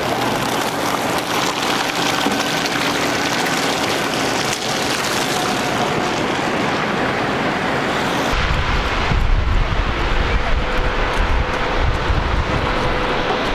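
Blizzard wind and snow-muffled street noise with a faint steady engine hum; about eight seconds in it changes abruptly to wind buffeting the microphone, a heavy low rumble.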